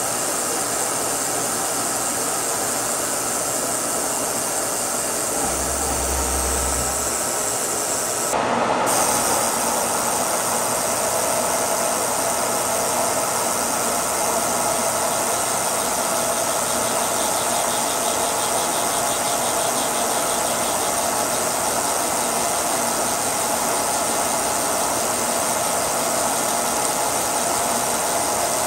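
Milling machine running an indexable end mill that cuts into the face of a chrome-plated 1045 steel pad, with a steady hiss of mist coolant over the spindle and cutting noise. The sound changes abruptly about eight seconds in.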